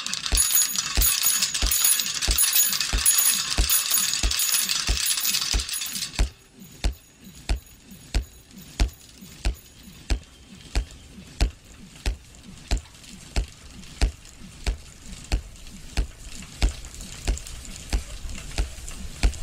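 Steady low soundtrack beat, one single thump about every 0.6 seconds. For the first six seconds a dense high rattling noise lies over it and cuts off suddenly; after that the beat continues alone.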